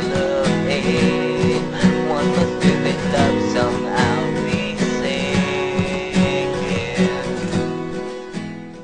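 Acoustic guitar strummed through the closing bars of a song, fading out near the end.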